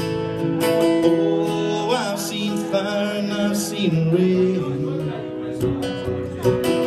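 Live solo acoustic guitar strumming with a man singing over it, the chords ringing steadily throughout.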